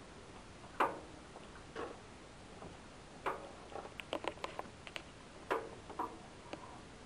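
Scattered light clicks and taps, irregular, with a quick cluster about four seconds in: handling noise as a hand works around plumbing lines and fittings.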